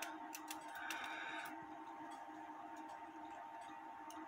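Faint small metallic clicks and taps of a cuckoo clock movement's brass plates, wheels and pivots being handled and fitted together with a screwdriver: a cluster of clicks in the first second and a half, a few more near the end, over a faint steady hum.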